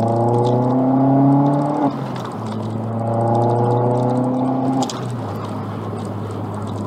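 Vauxhall Astra VXR's turbocharged four-cylinder engine through a Cobra 2.5-inch de-cat front pipe and non-resonated cat-back exhaust, heard from inside the cabin. It pulls hard with its note climbing in pitch, drops suddenly at an upshift about two seconds in, climbs again, then eases off about five seconds in to a steady, quieter cruising drone.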